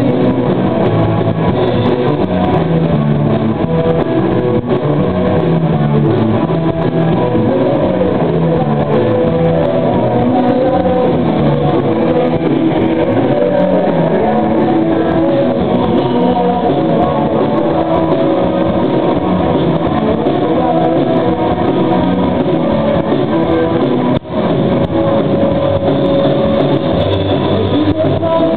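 Small rock band playing live: electric guitars over a drum kit in an instrumental passage, loud and steady. The sound drops out for an instant near the end.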